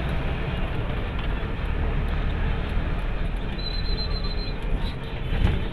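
Steady rumble of a moving vehicle with road and traffic noise, with a brief faint high beep about halfway through.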